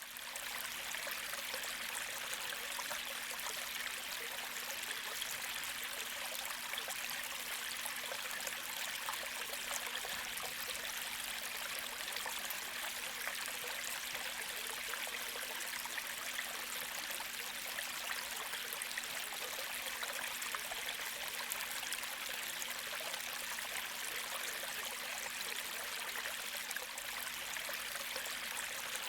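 A gentle creek flowing and trickling steadily, a continuous hiss of water with no pauses, fading in at the very start.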